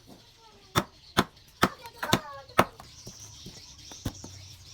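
A series of sharp strikes, five about half a second apart and then one more, weaker, near the end.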